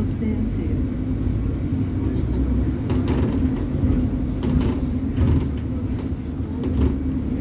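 City bus heard from inside the cabin while moving: a steady low engine and road drone with a held hum, and a few brief knocks and rattles from about three seconds in.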